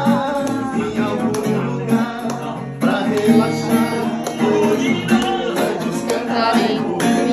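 Acoustic guitar strummed to accompany a man and a woman singing together, with hand claps.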